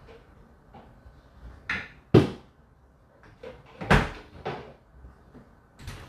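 Whirlpool WFO3P33DLXUK dishwasher running its 65 °C main wash: a faint steady whine under irregular knocks and clunks from inside the machine, the loudest a little after two seconds and at about four seconds.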